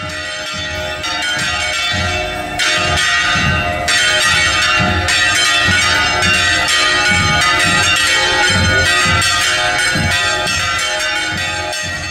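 Church bells in a brotherhood house's belfry pealing rapidly and continuously, ringing to greet the Simpecado as it passes. The ringing grows louder about two and a half seconds in and again at four seconds, over a regular low beat about twice a second.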